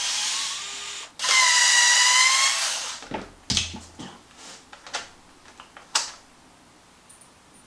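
DeWalt 8-volt cordless gyroscopic screwdriver running twice, first a short run and then a steady whine of about two seconds, as it removes a fastener from an RC truck's rear hub carrier. A few light clicks and taps follow.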